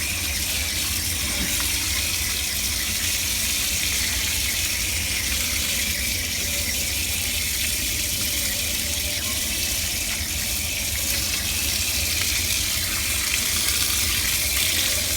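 Tap water running steadily over a motherboard being rinsed: a constant hiss with a low rumble underneath.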